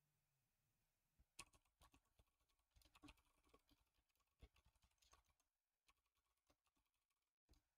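Faint typing on a computer keyboard: a quick run of key clicks that starts about a second in and thins out toward the end.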